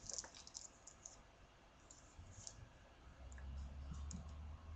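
Faint scattered clicks and light handling noise of small objects being picked up and moved, with a low dull rumble coming in about halfway through.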